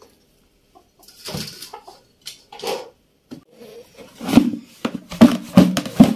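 Salted green chillies tipped from a plastic basket into a plastic tub of raw mango pieces: irregular rustling and knocking that grows louder and more frequent from about four seconds in, as the chillies and mango are tossed together.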